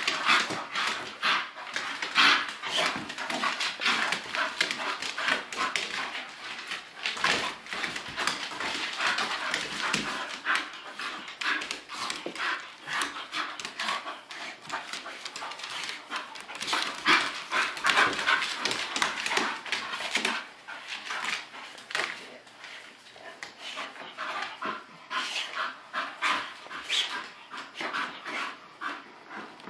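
Two English bull terriers play-wrestling: a dense, irregular run of dog noises and scuffling clicks, quieter in the last third.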